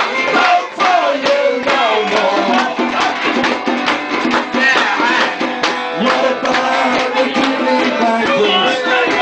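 A live band performing a song: a man singing into a microphone over instruments, with a regular percussion beat.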